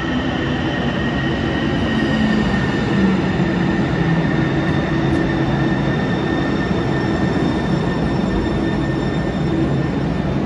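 Sound Transit Link light rail train, a Kinkisharyo light rail vehicle, pulling into an underground station platform and slowing to a stop. A steady rumble of wheels and motors runs under a high whine.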